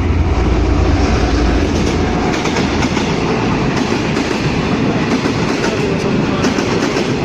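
V/Line N class diesel-hauled express passenger train passing at speed without stopping, its wheels clattering over the rails, with a deep low rumble that drops away about two seconds in.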